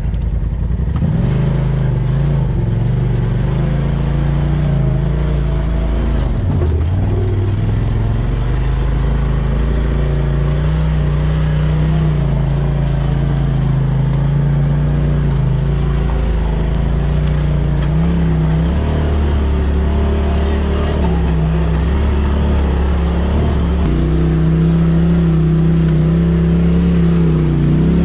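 Polaris RZR side-by-side engine running at low trail speed, its pitch rising and falling with the throttle. It runs a little louder and higher for the last few seconds.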